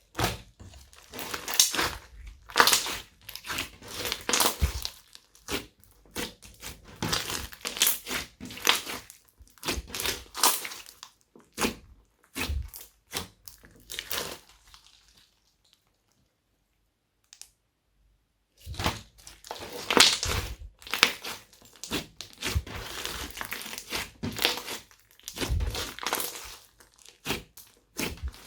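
Glossy slime being kneaded, stretched and folded by hand, giving off dense sticky crackling and clicking. It stops for about three seconds around the middle, then starts again.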